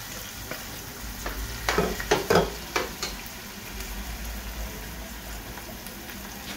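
Mixed vegetables sizzling steadily in hot oil with onion and garlic in a cooking pot, just after being added, with a few sharp knocks about two seconds in.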